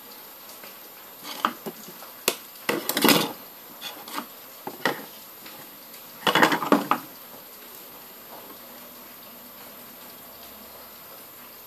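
Clicks, knocks and short clatters of phone parts and small tools being handled on a wooden table, loudest about three seconds in and again just after six seconds.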